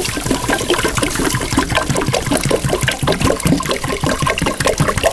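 Water pouring from a plastic jerrycan into a soot-blackened kettle, with a steady rapid gurgle.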